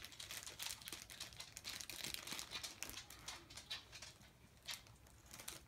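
Thin clear plastic packaging crinkling and rustling faintly as it is handled, busiest in the first three seconds or so and sparser after.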